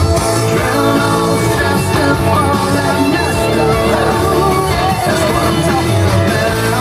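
A rock song with singing.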